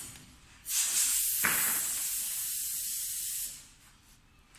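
Compressed air hissing from the sanding machine's pneumatic cylinders and valves, in one burst of about three seconds that starts and stops abruptly.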